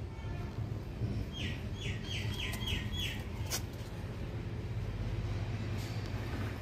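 A bird calling: a quick run of about six short, falling chirps about a second and a half in, over a steady low rumble, with one sharp click just after.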